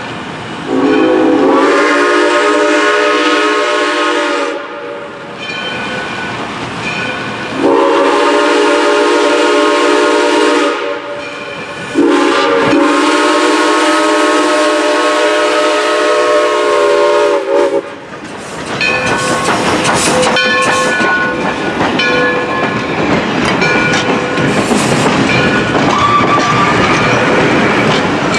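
Black River and Western steam locomotive No. 60, a 2-6-0, blowing its steam whistle for the grade crossing: three long blasts, the last held about six seconds with a brief break near its start. Then the locomotive and its passenger coaches roll past close by, a steady loud rumble with the clack of wheels over the rail joints.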